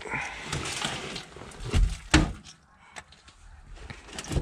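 Old car-floor carpet padding and insulation being pulled and torn off the floor pan, a rustling, scraping sound, with two sharp knocks about two seconds in and another near the end.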